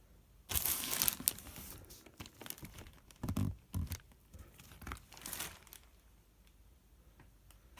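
Packaging being pulled open and handled while a loudspeaker box is unpacked: irregular tearing and crinkling, starting about half a second in, with a few heavier handling sounds in the middle.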